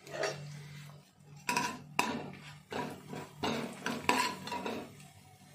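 Metal spoon stirring a tadka of cumin, dried red chillies and chilli powder in oil in a non-stick frying pan. It scrapes and clinks against the pan several times.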